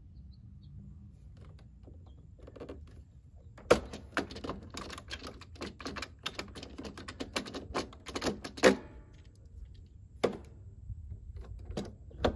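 Irregular clicks and taps of wires and parts being handled inside a metal breaker panel, coming in a quick flurry from about four to nine seconds in, then a few single knocks near the end.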